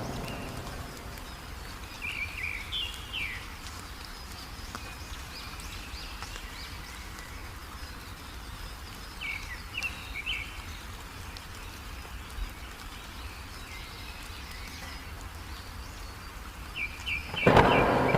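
A small songbird chirping in three short bursts of a few quick notes over a faint steady hiss of rain. A loud rush of noise breaks in near the end.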